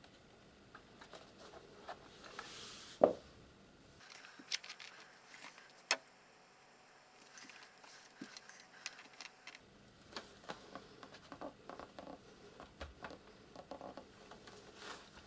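Plastic laptop case being handled and pried open: one sharp knock about three seconds in, then scattered small clicks and taps as fingers work along the seam of the bottom cover.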